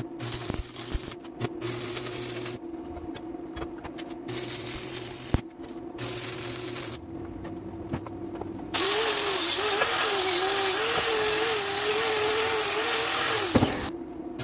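Welding arc crackling in a series of short tack welds, each a few seconds long. Then, about nine seconds in, a power tool whines for about five seconds, its pitch wavering under load, and it cuts off sharply.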